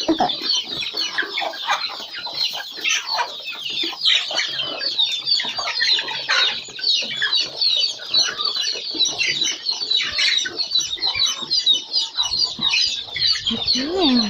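A flock of free-range Kienyeji chickens clucking and calling, with dense high chirping all through.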